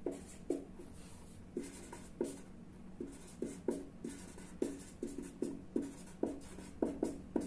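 Marker pen writing on a sheet, a run of short scratchy strokes, about two a second and uneven in loudness, as words are written out by hand.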